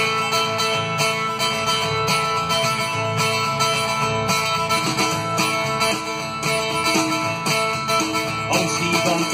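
Live band playing an instrumental intro: strummed acoustic guitar with electric bass guitar and drum kit, keeping a steady even beat.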